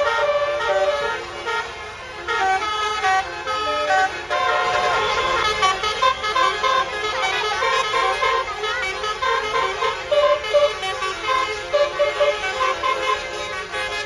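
Basuri telolet multi-tone air horns on tour buses playing their melodies, several horns overlapping, with stepped notes that jump from pitch to pitch and no pause.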